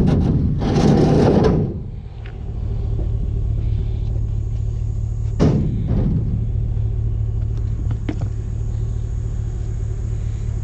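Vehicle engine idling steadily. Loud clattering for the first second and a half, then one sharp knock about five seconds in.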